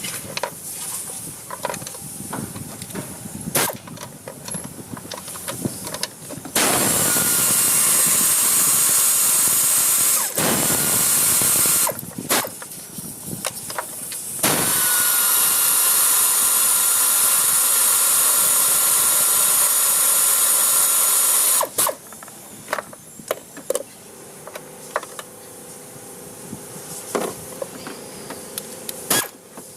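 A compressed-air power tool runs in two long steady bursts, of about four and about seven seconds, each a loud hiss with a steady whine. Light metallic clicks and knocks of hand work come in between and around them.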